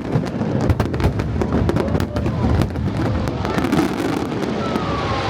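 Aerial fireworks bursting overhead: a dense run of sharp bangs and crackles over a rolling rumble, thinning out near the end.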